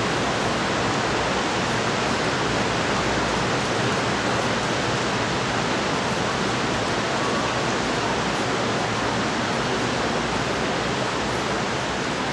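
Dozens of electric standing fans running together: a steady, even rush of air with no pitch and no rhythm.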